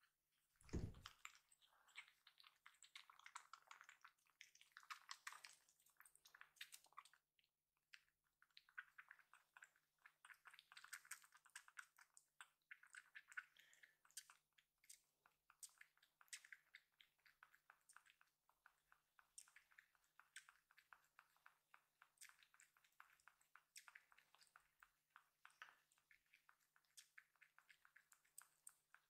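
A young kitten suckling milk from a nursing bottle: faint, rapid wet clicks and smacks at the nipple. A single soft thump about a second in.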